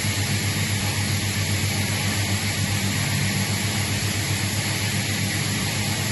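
Atlas Copco GA90+ oil-injected rotary screw air compressor running at about 8.5 bar: a steady low hum under an even rushing hiss.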